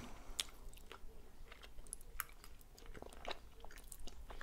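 Close-up chewing and mouth sounds of people eating spaghetti and chicken cutlets, with scattered light clicks of metal forks against the serving dish.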